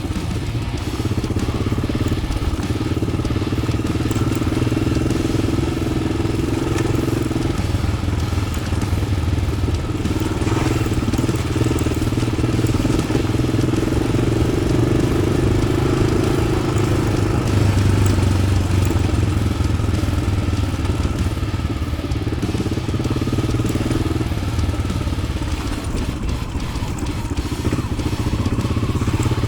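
Yamaha XT600 single-cylinder four-stroke engine, fitted with an Arrow exhaust, running continuously while the bike is ridden, with small changes in throttle along the way.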